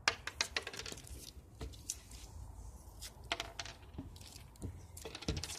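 Scattered light clicks and taps of Mentos candies and a plastic Coke bottle being handled.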